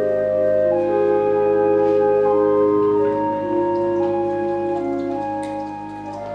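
Organ playing a slow piece in sustained, overlapping held notes.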